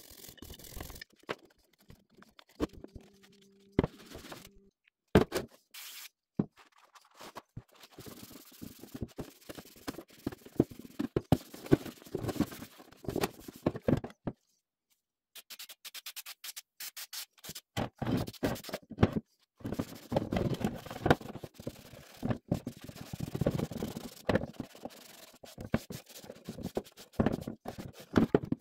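Cloth rag scrubbing and wiping painted drill press parts, an irregular rubbing and scraping, with sharp knocks as the parts are handled on the bench.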